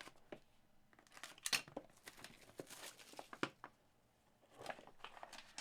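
Trading-card packaging being opened and handled by hand: faint crinkling and tearing of paper and plastic with light clicks and rustles, loudest about one and a half and three and a half seconds in.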